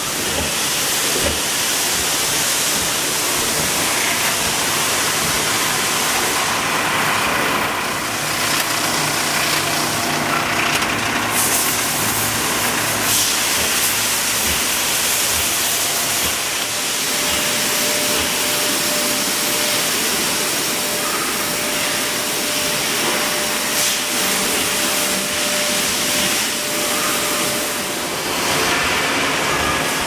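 Steady factory machinery noise from a plastic-container production line, a constant loud hiss with machine running under it. A faint steady tone joins in about halfway through.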